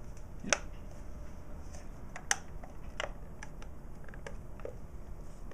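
Small plastic clicks and taps from handling a white plastic plug-in power adapter. The loudest clicks come about half a second in and a little past two seconds in, with fainter ticks between them.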